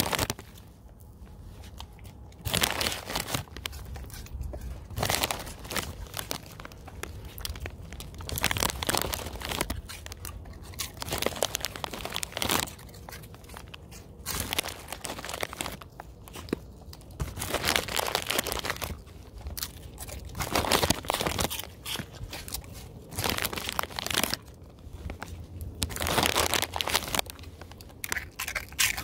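Dogs crunching crispy pork rinds in irregular bouts of a second or two, with crinkling and rustling between.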